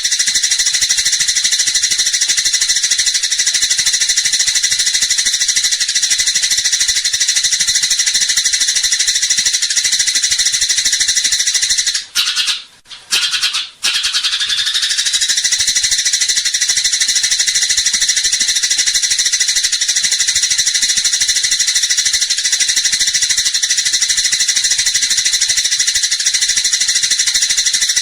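Eurasian tree sparrows in a fighting chatter: a dense, unbroken stream of shrill chirps that breaks off for two short pauses about twelve and thirteen and a half seconds in.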